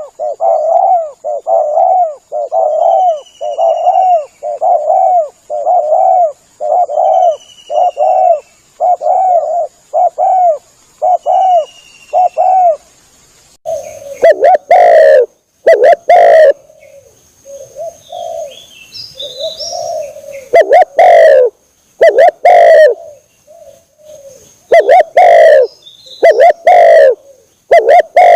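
Spotted dove (tekukur) cooing over and over, used as a lure call: for about 13 seconds an even run of low coos, about one and a half a second. The recording then turns louder and harsher, with less regular coos broken by sharp clicks. A faint high chirping of another bird sounds in the first half.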